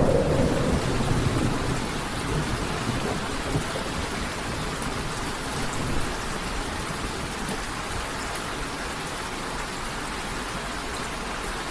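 Steady rain falling: an even hiss, with uneven rumbling low down.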